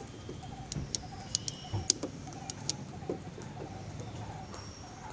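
A few sharp clicks and taps, most of them between about one and three seconds in, from the removed fuel lid actuator unit being handled, over birds calling in the background with a short note repeated about twice a second.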